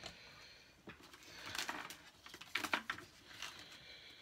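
Trading cards being handled and shuffled: soft rustling with a few sharp light clicks of card stock, most of them between about one and a half and three seconds in.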